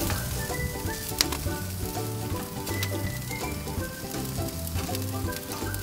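Beef burger patties sizzling on a hot gas grill, a steady hiss with scattered pops and crackles, one sharper crack about a second in. Background music with a bass line plays along.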